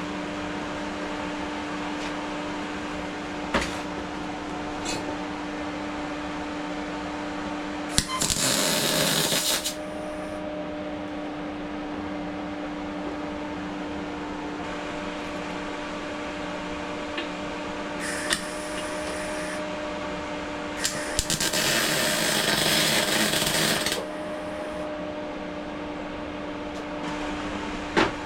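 Steady hum of a running welding machine, broken twice by the noise of the welding arc as tack welds go onto steel box section: a short burst about 8 s in and a longer one of about 3 s near 21 s in. A few sharp clicks fall in between.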